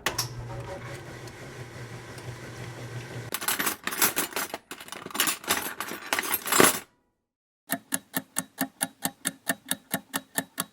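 Washing machine running: a steady motor hum for about three seconds, then several seconds of uneven churning surges that stop abruptly about seven seconds in. After a short silence comes an even countdown-timer ticking, about four ticks a second.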